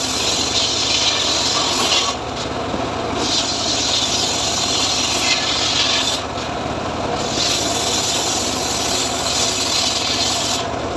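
Homemade circular-saw sawmill (gergaji srekel) ripping teak planks lengthwise: a loud, high rasping hiss as each board feeds through the blade. There are three cuts, breaking off briefly about 2 and 6 seconds in and again near the end, with the saw's machine hum running steadily underneath.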